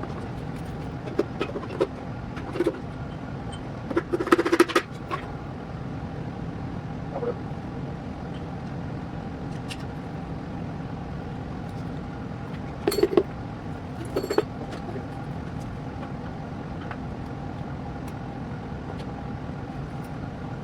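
Metal tools and engine parts clanking and knocking now and then during the teardown of a big-block engine, with a burst of clanks about four seconds in and two more near the middle, over a steady mechanical hum.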